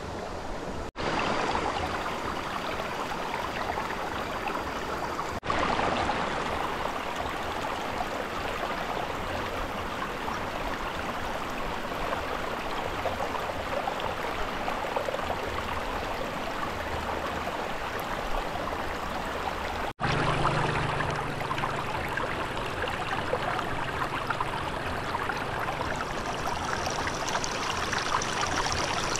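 Stream water flowing and splashing steadily, with brief abrupt breaks about a second in, about five seconds in and about twenty seconds in.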